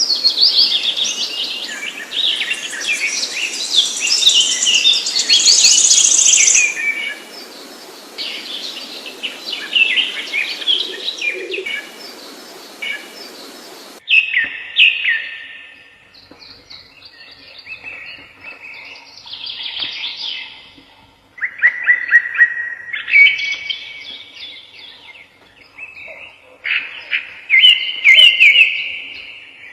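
Songbirds singing: a dense, high-pitched chirping song over background hiss, then about halfway through an abrupt cut to a different recording of a bird singing short, separate phrases.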